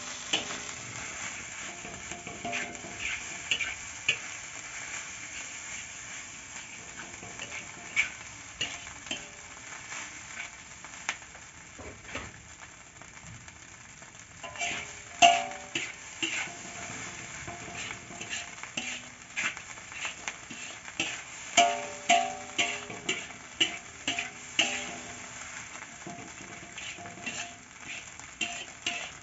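Fried rice being stirred and tossed in a wok with a spatula: a steady sizzle of frying, with frequent scrapes and clinks of the spatula against the wok, busier in the second half.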